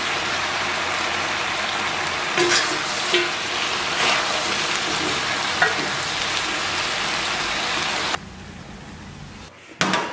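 Braised noodles sizzling in a hot wok as they are tossed with chopsticks and a metal spatula, with a few clacks and scrapes of the spatula on the wok. The sizzling cuts off abruptly about eight seconds in, and a single knock comes near the end.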